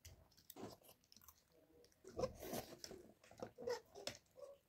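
Children eating momos: soft, irregular chewing and mouth sounds, with light clicks of spoons and forks in ceramic bowls.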